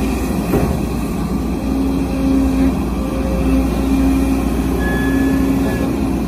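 Case CX210C crawler excavator's diesel engine running under load while the machine sits bogged in mud, with a humming tone that comes and goes every second or so.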